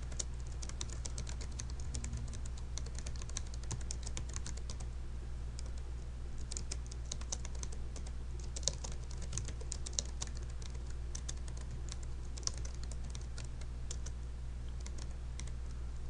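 Typing on a computer keyboard: quick runs of keystrokes with short pauses between words and phrases, over a steady low hum.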